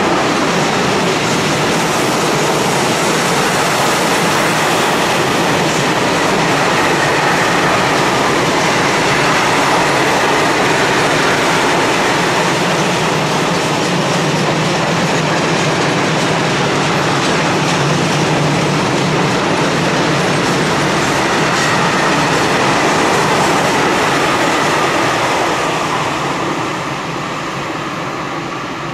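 Freight train of covered wagons and tank wagons running past close by, a steady rumble and clatter of wheels on the rails that fades near the end as the tail of the train moves away.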